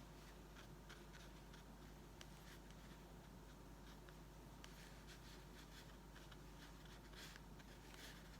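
Faint, soft scratching of a small watercolour brush stroking across paper, in irregular strokes with a few light ticks, over near silence.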